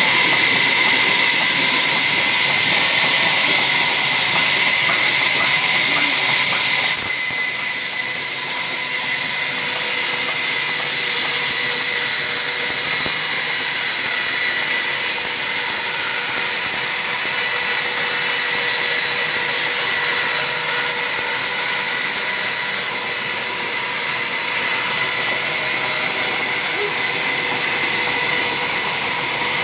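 Sawmill saw running steadily as workers feed a log lengthwise through it, a constant hissing whine with a brief dip about eight seconds in.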